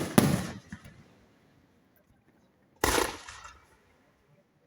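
Aerial firework shells bursting: two bangs in quick succession at the start and another about three seconds in, each dying away over about a second.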